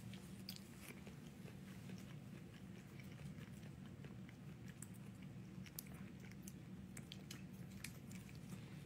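Faint chewing and wet mouth clicks from eating fruit jelly sucked from a small cup, scattered over a low steady hum.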